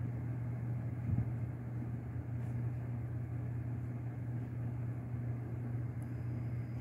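Steady low hum with faint background noise, and a soft bump about a second in.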